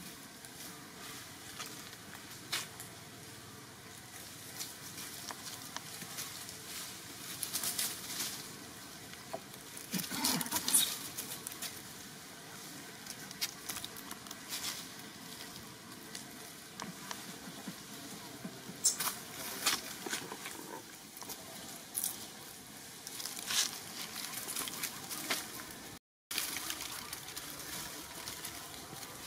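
Dry fallen leaves crackling and rustling as monkeys move over them, in scattered short bursts of crackles over a faint outdoor hiss.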